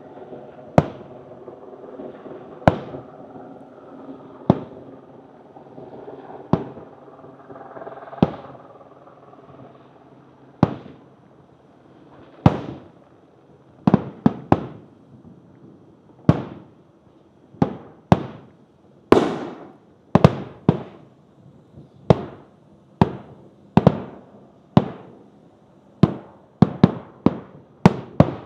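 Aerial fireworks shells bursting, each a sharp bang that trails off. The bangs come about every two seconds at first, then quicken into a rapid series in the second half. A faint steady hum of several tones sits under the first ten seconds or so.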